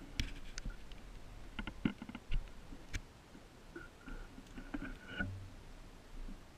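Scattered small clicks and light knocks close to the microphone, with a faint thin high tone heard briefly twice, at the start and about four seconds in.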